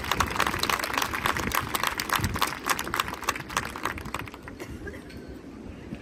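A dense patter of sharp claps or clicks that thins out and fades about four and a half seconds in, leaving a quiet pause in the marching band's show.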